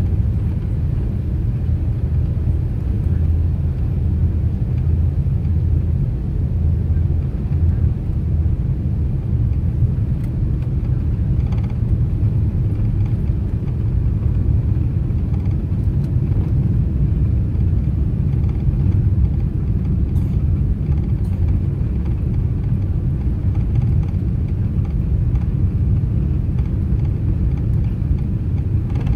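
Steady low rumble of engine and airflow noise inside an airliner cabin during its descent to land.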